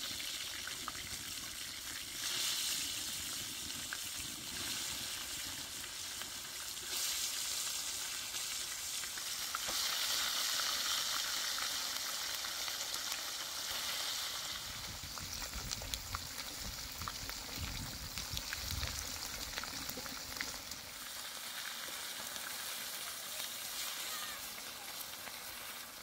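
Fish frying in hot oil in a pan: a steady sizzle with scattered small pops, swelling louder a couple of times.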